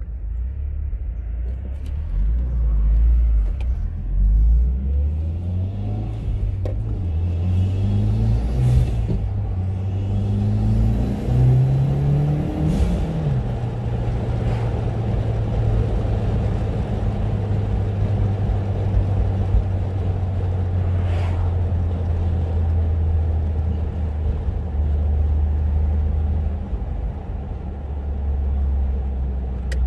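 Mitsubishi Lancer Evolution X GSR's turbocharged 2.0-litre four-cylinder engine, breathing through a Cobb Stage 1+ SF intake, pulling up through the gears: the engine note climbs in several rising pulls, then settles to a steady cruise a little before halfway.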